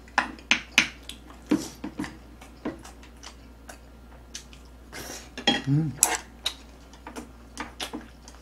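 Spoon and chopsticks clinking and scraping against bowls and a pan while eating, as a string of short sharp clicks, thickest in the first second.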